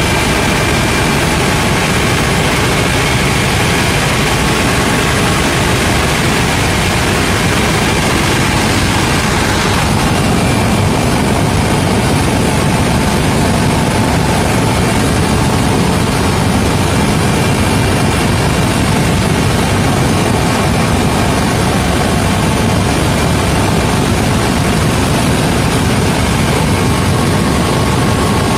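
Helicopter in flight, heard from inside the cabin: loud, steady rotor and turbine engine noise with a faint high whine running under it.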